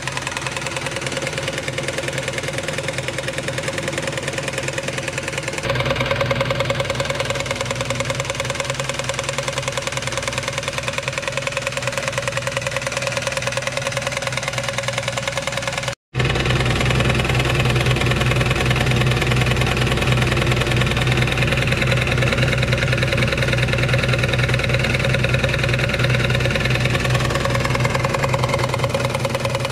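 Wilesco D145 toy live-steam engine running steadily, driving its line shaft and belt-driven workshop models, with a fast, even mechanical clatter. The sound cuts out for an instant about halfway and comes back a little louder.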